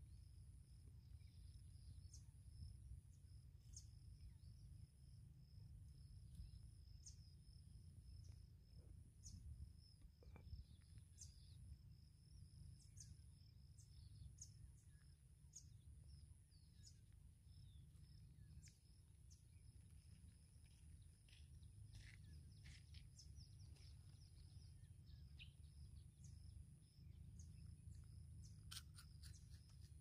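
Faint natural outdoor ambience: steady high-pitched insect trilling, with scattered short bird chirps and a low background rumble.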